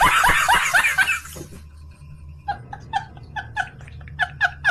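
A person laughing in a rapid run of short bursts. The laugh is loud at first and dies away about a second and a half in. A quieter run of short, high 'he-he' bursts, about four a second, follows near the middle and goes on to the end.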